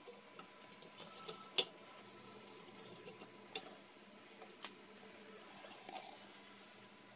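A few light clicks and taps over quiet room tone as slices of bread are fitted into the metal cage of an antique electric toaster, the sharpest click about one and a half seconds in.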